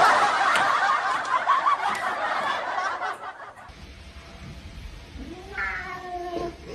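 People laughing hard for about three and a half seconds. Near the end comes a short pitched call, rising at first and then held.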